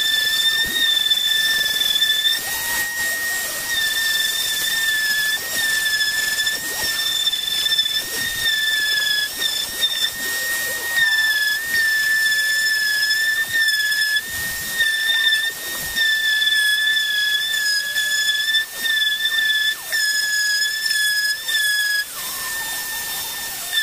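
Electric sheet (orbital) sander running against plywood: a steady high whine over a hiss, its pitch wavering slightly as it is pushed along the work. It runs a little quieter near the end.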